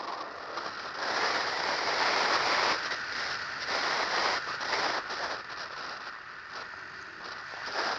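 Air rushing over the onboard camera's microphone as the RC glider flies: a crackly hiss that swells about a second in and eases later, with no motor whine.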